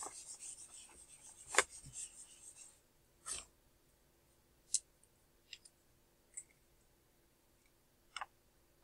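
Small dry-erase whiteboard being wiped clean by hand, a quick rubbing swish for the first few seconds with a sharp knock about a second and a half in. After that, a few scattered light clicks and taps.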